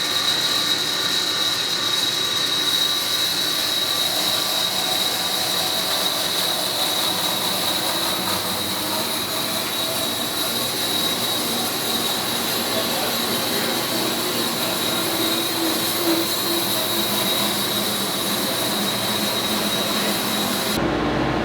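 Electric Wood-Mizer WM1000 bandsaw mill running, its blade sawing through a large black walnut log with a steady high whine over a broad mechanical din. The sound stops abruptly near the end, leaving a low hum.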